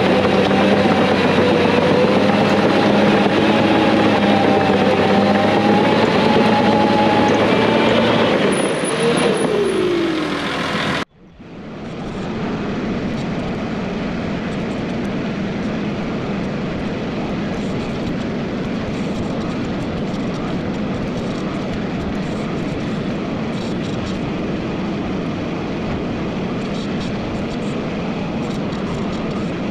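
Caterpillar D4G XL crawler dozer's diesel engine running under load as it pushes spoil back into a trench, its pitch falling near the middle. After a sudden cut, a John Deere compact tractor's engine runs steadily as it drives.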